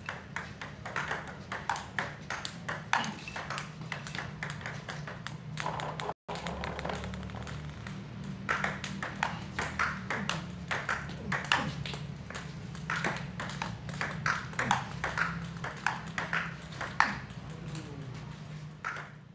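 Table tennis rally: the ball clicks back and forth off pimpled-rubber paddles and bounces on the table, a few sharp knocks a second without a break. The sound cuts out briefly about six seconds in.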